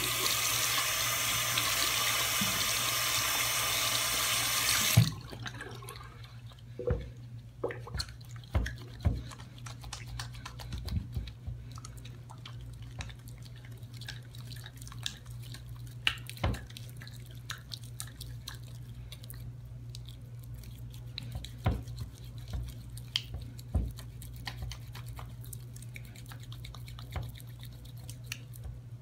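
Bathroom sink faucet running into the basin for about five seconds, then shut off with a click. After that, wet hands rub a bar of soap into lather, with soft, irregular squishing and clicking over a steady low hum.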